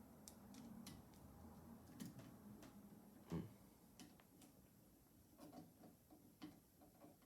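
Faint, irregular small clicks and taps of a screwdriver and wire being worked at a light switch box, the loudest about three and a half seconds in.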